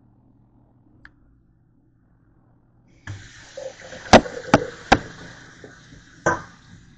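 Kitchen tap turned on about three seconds in, water running into a stainless steel sink, with four sharp metallic knocks from a stainless mixing bowl being handled in the sink.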